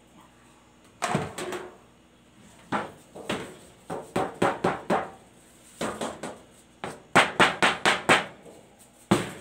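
Thin metal baking sheets clattering and knocking against each other and the table as they are lifted and set down: a string of sharp knocks with short ringing, in clusters, coming quickest near the end.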